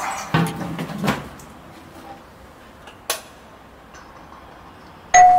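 A few bumps and knocks as a large plastic water jug is set down, then a single sharp click about three seconds in. Near the end a two-tone doorbell chime rings loudly.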